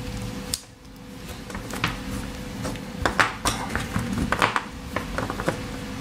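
Pocketknife clicking and scraping against the small plastic housing of a USB-C cable connector: a string of irregular sharp clicks and ticks.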